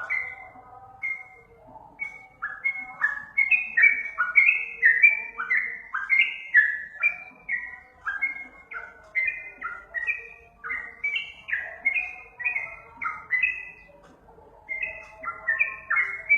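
Yellow-vented bulbul (trucukan) song: a rapid, bubbly run of short whistled notes, each sliding down in pitch, several a second and often overlapping.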